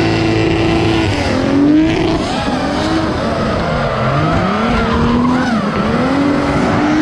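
Drift car's engine revving up and down, its pitch rising and falling several times, while the rear tyres spin and screech through a slide.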